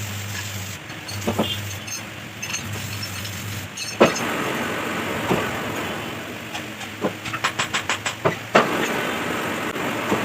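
Metal lathe running steadily while boring out a centre pin bush, with a low hum and scattered sharp metallic clicks, and a quick run of ticks about three-quarters of the way through.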